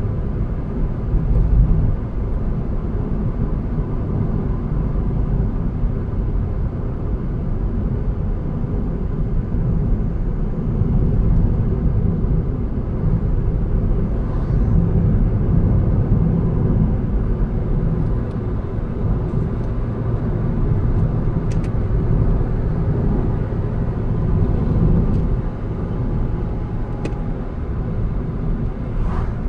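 A car being driven along a road, heard from inside the cabin: a steady low rumble of engine and tyre noise that swells and eases slightly with the road.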